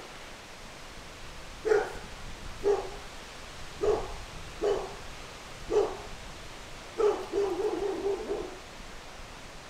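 Old English Sheepdog barking: six single barks about a second apart, then a longer, wavering bark about seven seconds in.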